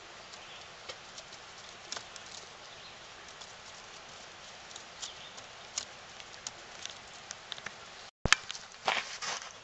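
Flowing mountain stream water: a steady hiss with scattered small crackles and ticks. About eight seconds in, the sound cuts out for an instant, followed by a sharp click and a short burst of rustling.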